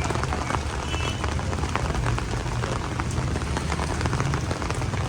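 Heavy rain falling, the drops making dense sharp ticks, over a steady low rumble.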